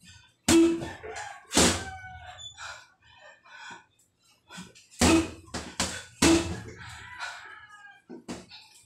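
Gloved punches landing on a heavy punching bag: sharp thuds in bunches, two near the start and three a little past the middle, with a lighter hit near the end.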